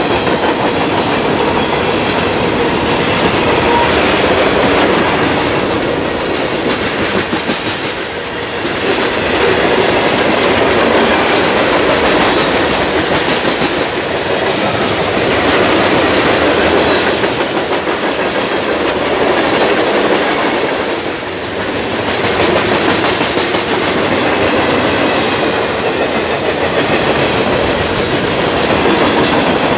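Freight cars of a CSX mixed freight train rolling past: loud, steady wheel-on-rail noise with the clickety-clack of wheels over rail joints, dipping briefly in loudness about eight and twenty-one seconds in.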